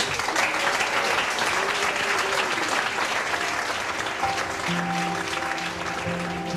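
A roomful of people applauding, a dense, sustained clapping. About four seconds in, background music with held notes comes in under the applause.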